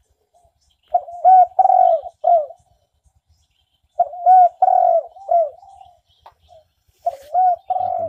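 Recorded spotted dove cooing played loudly from a portable speaker as a bird-hunting lure: three phrases of a few hooting coos each, about three seconds apart.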